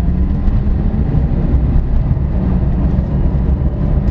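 Cabin sound of a 2023 BAW Pony S electric city car accelerating in sport mode: a steady low road and tyre rumble, with the electric motor's faint whine above it.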